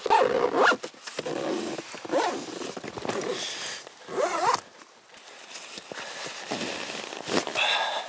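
A zipper on a nylon folding-kayak carry bag being pulled in several quick rasping runs, with rustling and handling of the bag between them.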